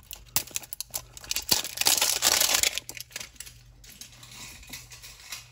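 A sealed plastic mini figure canister being opened by hand: a run of small plastic clicks and crackles, with a louder stretch of crinkling about two seconds in, then quieter handling clicks.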